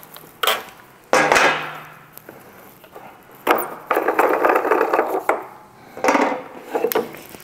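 Handling noise as a plastic spool of steel MIG wire is worked off the spool hub inside an HTP MIG 2000i welder's wire-feed compartment: a run of knocks, clicks and rattles, with a longer scraping rattle about four to five seconds in.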